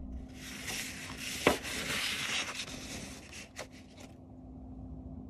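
Scratchy rubbing on a sheet of watercolour paper for about four seconds, with two sharp clicks along the way and a faint steady hum underneath.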